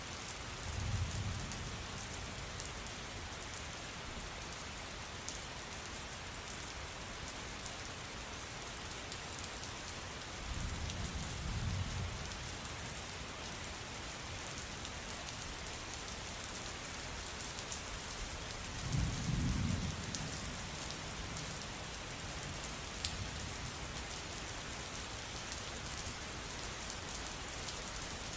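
Steady rain falling, with scattered ticks of drops. Three short low rumbles of thunder come near the start, about ten seconds in and about nineteen seconds in.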